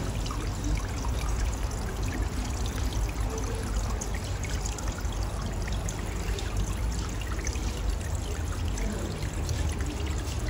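Small decorative fountain running in a display pond: a steady trickle and splash of falling water.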